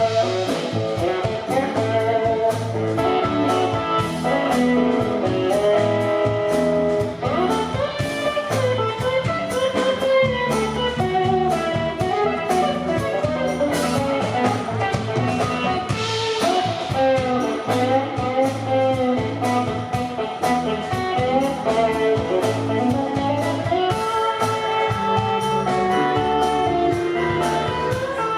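Live blues band playing an instrumental break in a gospel song, a guitar taking the lead over bass and a steady drum beat.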